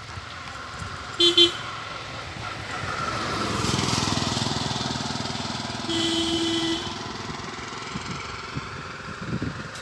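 A vehicle horn gives a short honk about a second in as a vehicle passes, its noise swelling and fading. The horn sounds again for under a second around the middle.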